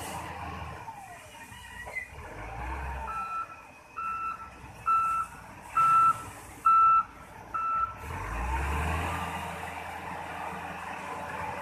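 SDLG wheel loader's reversing alarm beeping six times, about once a second, over the steady running of its diesel engine, a sign that the loader is backing up. The engine gets louder as the beeping stops near the end.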